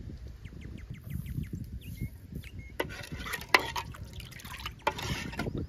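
Metal ladle stirring milk in an aluminium pot: the milk sloshes in two short spells, with one sharp knock of the ladle against the pot a little past the middle.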